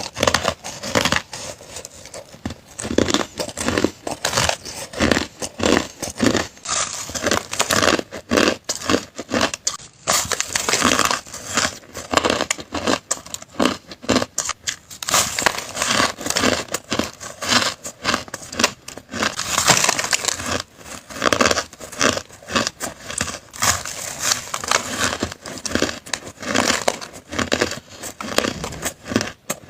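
Hard crushed ice being chewed in big bites close to the microphone: a continuous run of loud, sharp crunches.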